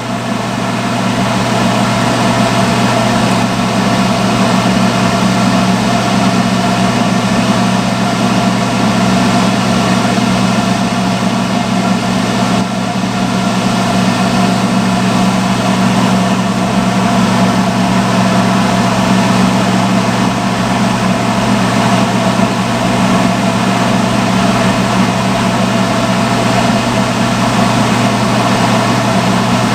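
Salon hood hair dryer running: a steady motor-and-fan hum with a constant rush of air.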